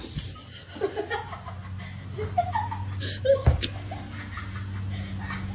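Soft, short bursts of laughter over a steady low hum, with one sharp knock about three and a half seconds in.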